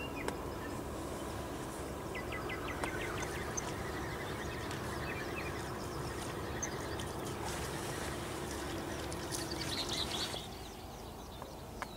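Riverbank ambience: a steady low hum under an even hiss, with small birds chirping and trilling now and then. The hum and hiss drop away abruptly about ten seconds in.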